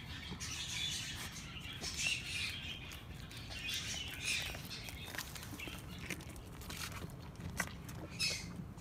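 Japanese Saanen-mix goat chewing a hand-fed tangerine: wet, uneven munching and smacking, with a few sharper clicks near the end.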